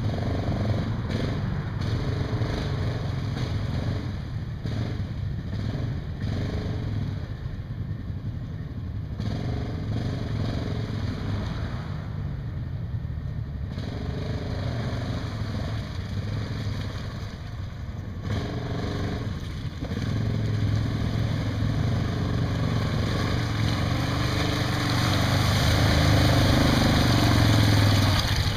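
Yamaha Grizzly ATV's single-cylinder engine running and revving up and down as it works through deep mud. It gets louder in the last third as it comes close.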